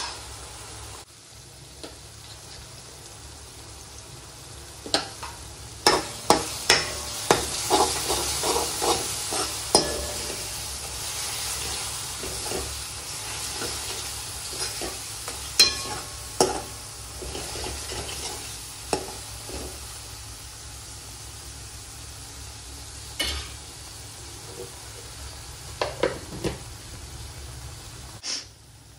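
Onion-tomato masala with a garlic, green chilli and coriander paste frying in a kadhai over a high flame, sizzling. A spatula clinks and scrapes against the pan as it is stirred, most often about six to ten seconds in, then now and then.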